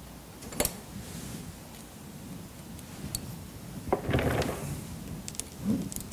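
Handling noise from wiring a Japanese white pine branch: a few sharp clicks of bonsai wire and branch being worked by hand, with a brief rustle about four seconds in.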